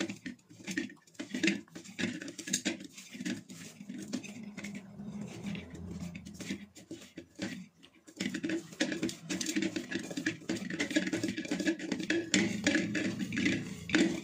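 Hands kneading wheat-flour dough in a steel bowl: the dough is pressed and folded, with irregular knocks and scrapes of the steel bowl, busier and louder about halfway through.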